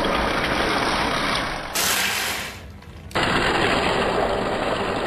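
3D-printed RC tank with a 540 brushed motor driving through shallow water: a fast rattle from its plastic track links mixed with splashing spray. The sound changes abruptly twice, about two and about three seconds in.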